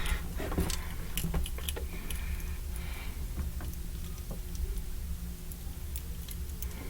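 Gunpla plastic model kit being handled, its joints turned and posed, giving small irregular plastic clicks and ticks.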